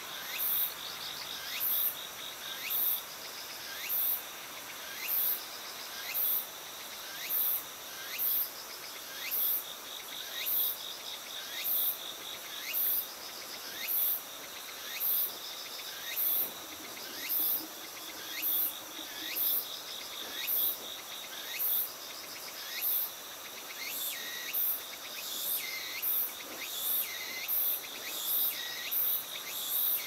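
Insects calling in grass: a very high-pitched chirp repeats about once a second and comes a little faster near the end, over a steady trill.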